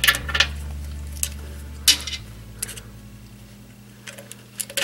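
Scattered sharp metallic clicks and clinks of bolts and nuts being fitted by hand as an onboard air compressor is lined up with its mounting holes, over a low steady hum.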